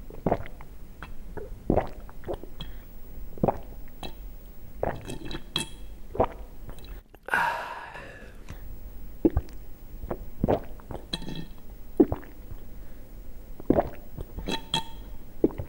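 Thin stream of water falling into a plastic funnel, making irregular wet clicks and plops about one or two a second, some with a light ringing edge, and a brief splashy hiss about seven seconds in.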